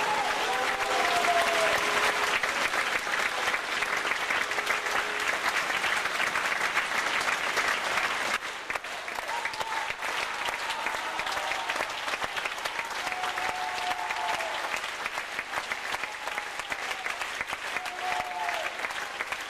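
A theatre audience applauding at the end of a ballet performance, a dense steady clapping that sets in as the orchestra's last notes fade. The applause drops a little about eight seconds in.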